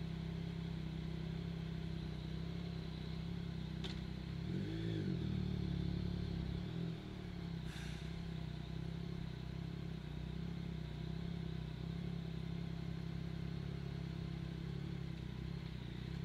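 Yamaha MT-09's three-cylinder engine idling steadily, with a brief small rise and fall in revs about five seconds in.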